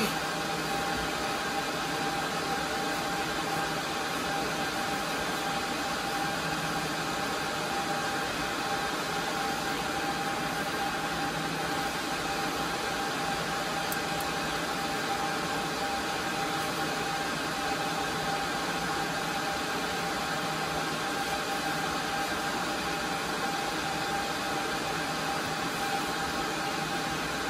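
Cooling fans of a rack of network switches and servers, including a Cisco UCS 6296UP fabric interconnect and HP ProLiant DL380p Gen8 servers, running steadily: an even rushing hum with a steady whine.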